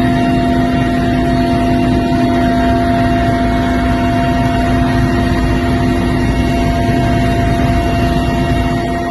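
Aircraft in flight, its engines running as a loud, unbroken drone with several steady tones.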